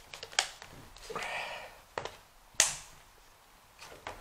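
Hard plastic parts of a toy playset tower being handled and pushed together: a brief rustle and three sharp plastic clicks, the loudest about two and a half seconds in, as a section snaps into place.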